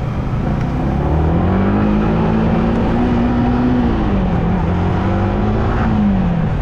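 Yamaha R15M sport bike's single-cylinder engine accelerating under way: its note climbs for a few seconds, dips about four seconds in, climbs again and falls away near the end.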